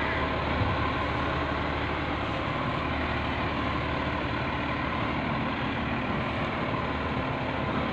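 Diesel engine of a J.J. Richards rubbish truck running steadily as the truck moves off slowly.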